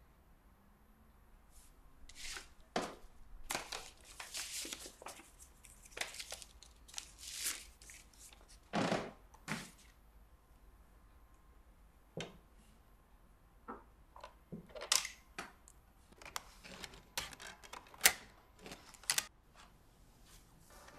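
Scattered taps, clicks and rustles of someone working at a laptop on a table, touching its keys and the papers beside it; softer rustling taps in the first half, sharper single clicks near the end.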